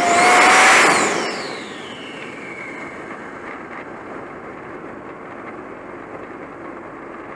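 Turbocharger of a GTP's engine with a loud whoosh, the hurricane noise of the turbo blowing into free air, peaking about half a second in, its high whistle falling away over the next two seconds as it spools down. The engine then keeps running steadily under the air noise.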